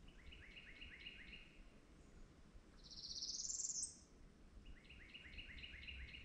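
Songbirds singing: a short phrase of about five quick, repeated high notes near the start and again near the end, and between them a louder buzzy trill that rises in pitch.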